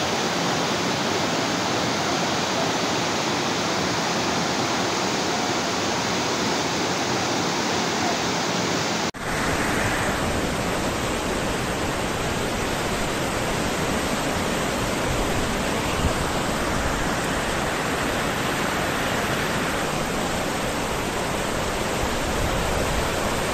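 Flash floodwater rushing, a steady dense noise of fast-moving water. It breaks off abruptly about nine seconds in and carries on at the same level in a second recording.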